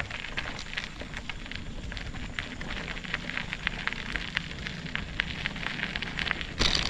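Mountain bike rolling over rough off-road ground: a dense run of irregular clicks, crackles and rattles over a low rumble, with a louder burst near the end.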